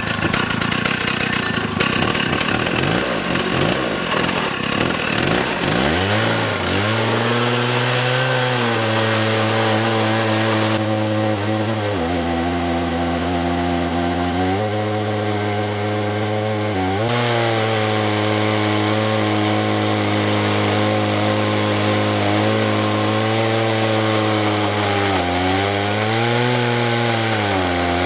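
Two-stroke chainsaw fitted to a homemade chainsaw mill, making a lengthwise rip cut through a log. It runs rough and uneven for the first few seconds, then climbs to a steady high pitch at full throttle that sags several times as the chain takes the load of the cut.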